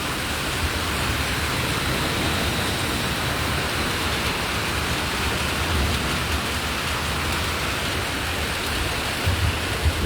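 Heavy rain pouring, a steady even hiss with low rumbling underneath.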